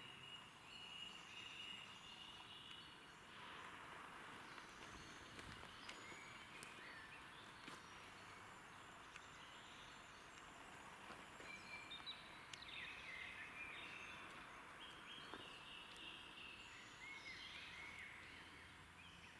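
Faint woodland ambience with several songbirds chirping and calling in short phrases over a steady hiss. The calls are busiest in the first few seconds and again in the last third.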